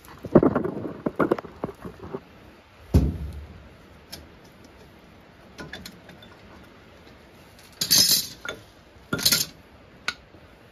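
Metal clinking and scraping as a brake caliper is worked back over new pads on the disc, with a heavy knock about three seconds in and two sharp metallic clanks near the end.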